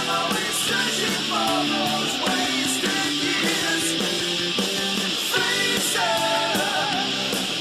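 Guitar-driven rock music playing steadily.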